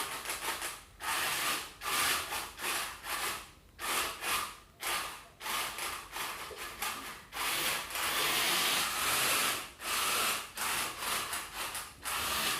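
The RC car's four small geared DC motors whirring as they drive its wheels, in short runs of about a second with brief pauses between them as it is driven back and forth and turned.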